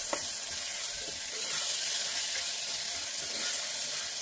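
Pre-boiled mutton pieces sizzling in hot oil with fried onions in a pressure cooker while a metal spoon stirs them, with a couple of short knocks of the spoon against the pot.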